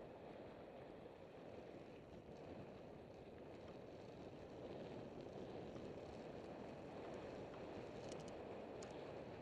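Steady, dull rush of wind on the microphone mixed with mountain-bike tyres rolling over a dirt trail, growing a little louder about halfway through. A few light clicks near the end.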